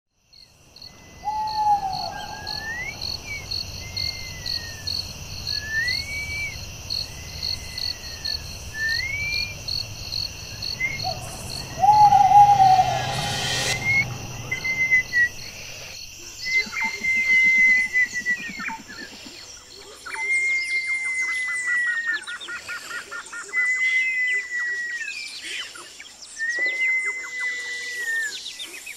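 Woodland night ambience: crickets and insects trilling steadily, a short falling hoot twice, and repeated chirping calls, with a louder rush of noise around twelve to fourteen seconds. About halfway through it changes to daytime birdsong, with long whistled calls, trills and scattered chirps.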